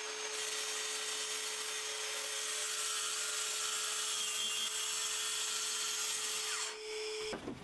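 Bosch track saw running along its guide rail, cutting through 18 mm white laminated furniture board: a steady whine with the hiss of the blade in the board, stopping near the end.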